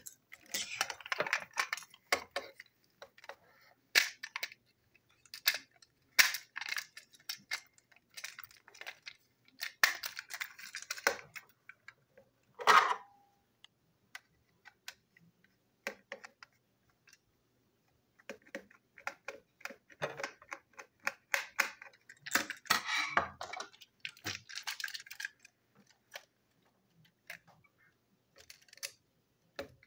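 Plastic toy-train parts being handled and fitted together: scattered clicks, rattles and scrapes as the Thomas body shell is pushed onto the motorised chassis, with one sharper knock a little before halfway through.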